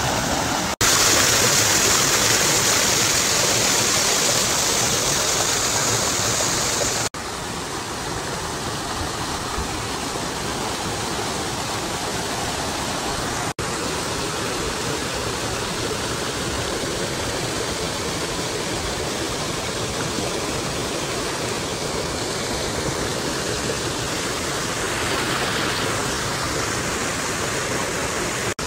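Mountain stream rushing over rocks, a steady hiss of water. About seven seconds in it breaks off for an instant and carries on quieter, with two more brief dropouts.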